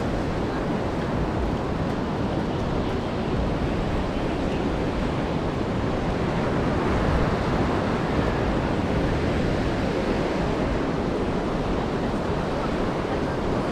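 Ocean surf washing ashore: a steady rush of wave noise that swells slightly about halfway through.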